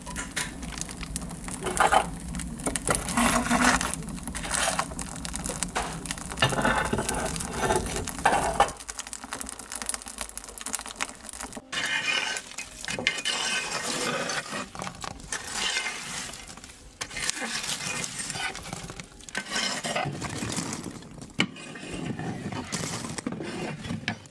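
Irregular clinks, knocks and scraping of tools and cookware at a wood-fired Russian stove as bread is tended at the oven mouth. A low steady rumble underneath stops about nine seconds in.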